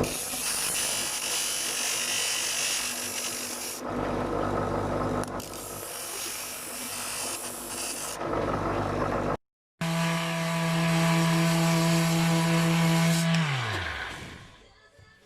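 Plasma cutter running on a CNC machine, its arc and air giving a loud, rough hiss, with a sudden break partway through. A motor then hums at a steady pitch under the hiss and spins down, its tone falling until it fades near the end.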